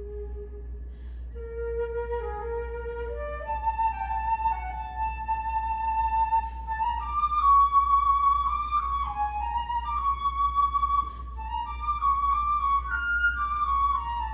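Solo flute playing a slow, free-flowing melody of long held notes that climb from the low register into the middle register and grow louder, with a steady low hum underneath.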